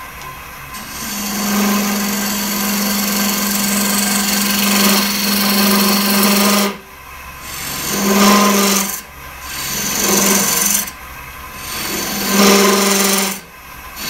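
Spindle gouge cutting into the end grain of a spinning chokecherry blank on a Oneway wood lathe to hollow a goblet cup, over the lathe's steady hum. There is one long cut of about six seconds, then four shorter cuts, each a rush of cutting noise with a steady low tone, as the long, out-of-balance blank vibrates at low speed.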